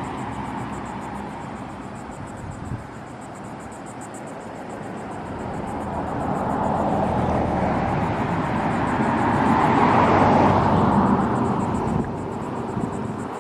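A motor vehicle passing by: a broad road noise that builds from about six seconds in, is loudest near ten seconds, and drops away at about twelve. A high, evenly pulsing insect chorus runs underneath.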